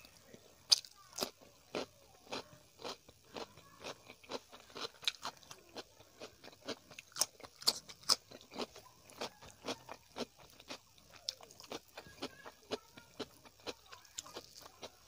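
Close-up crunching as raw cucumber slices are bitten and chewed, about two crisp crunches a second.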